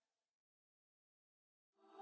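Near silence: a gap between two pieces of background music, with the next piece fading in faintly near the end.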